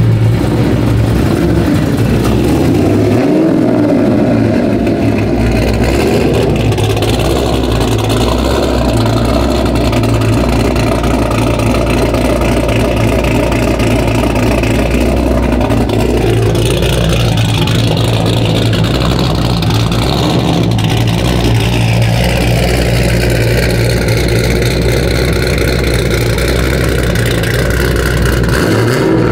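Pickup truck engines running with a steady low rumble; a bit past halfway one revs up, its pitch climbing for a few seconds and then falling back.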